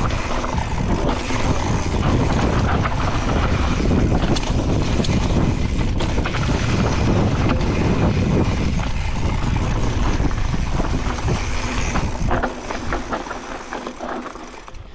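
Mountain bike riding fast down a dirt trail: wind rushing over the camera microphone, with tyres on dirt and the bike rattling over the bumps. About twelve and a half seconds in the bike slows and the rush dies down.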